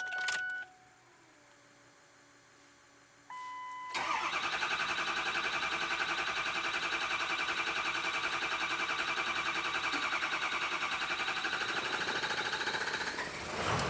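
A short beep about three seconds in, then a Ford 6.0L Power Stroke V8 diesel being cranked on weak batteries for about nine seconds, the starter turning it over with a rapid, even pulsing. Near the end the engine catches and starts running.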